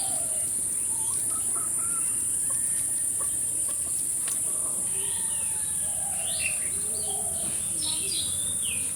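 Chickens clucking, with other birds calling, over a steady high-pitched hiss; the calls come thicker in the second half.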